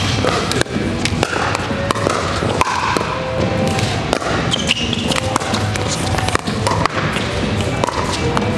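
Pickleball rally: repeated sharp pops of paddles striking a plastic ball at irregular intervals, over background music.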